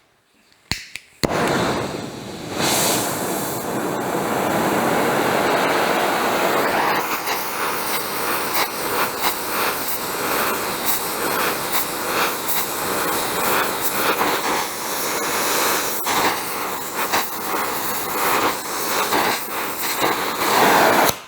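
Gas torch lit with a click, then burning with a loud, steady hiss as it heats a steel pedal lever ready for bending; the flame cuts off abruptly near the end.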